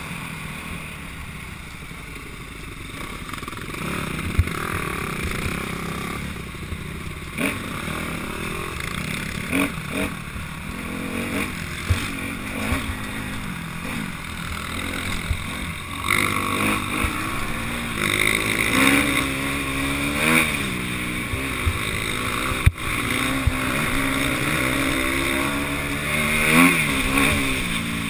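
Enduro motorcycle engine running on a rough dirt trail, the revs rising and falling several times in the second half, with sharp knocks and rattles now and then from the bumpy ground.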